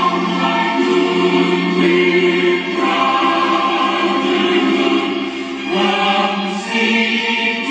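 Choir singing long held chords with musical accompaniment; the chord changes about three seconds in and again near six seconds.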